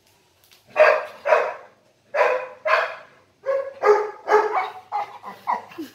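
Labrador retriever giving about ten short, whiny barks, mostly in pairs, fussing to be petted and massaged.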